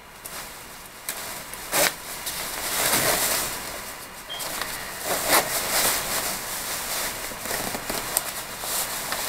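Fabric rustling of a winter jacket being put on and adjusted, a steady swishing with a few sharper swishes and crackles.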